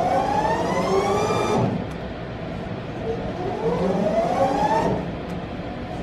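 Instron universal testing machine's crosshead drive motor whining as the crosshead is jogged upward: a rising whine that cuts off under two seconds in, then a second rising whine from about three and a half seconds to about five seconds in.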